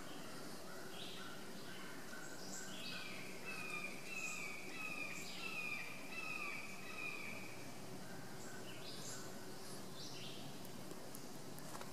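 Faint birdsong outdoors: birds repeating short chirping notes, with a run of short falling notes loudest between about three and seven seconds in.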